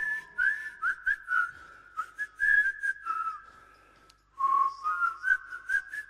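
A whistled tune, its notes held and sliding, sometimes two at once, with short sharp clicks between them and a brief break about four seconds in.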